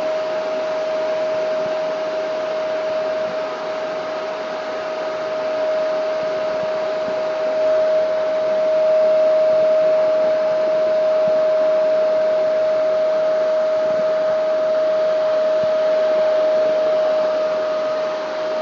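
Vacuum cleaner running steadily with a high motor whine and rushing airflow, the level swelling and dipping slightly as it is pushed around.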